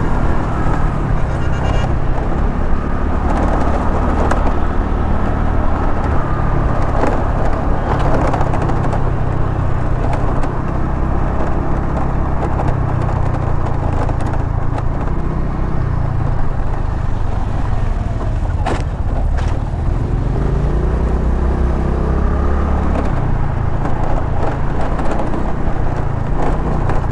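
Motorcycle engine running while riding, with wind and road noise over the microphone; the engine note shifts a few times as the speed changes.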